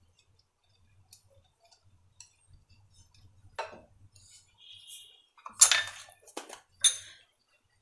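A wire whisk stirring faintly in a glass bowl of batter, then a few sharp clinks of metal against glass in the second half, the loudest a little past halfway.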